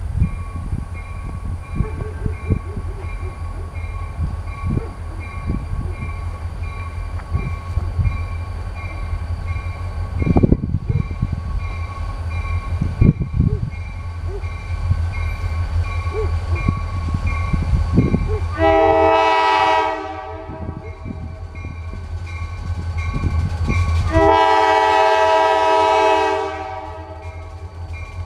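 Diesel locomotive air horn of an approaching freight train sounding two blasts of several notes together, a shorter one about two-thirds through and a longer one near the end. Under it, the railroad crossing bell rings steadily over a low rumble.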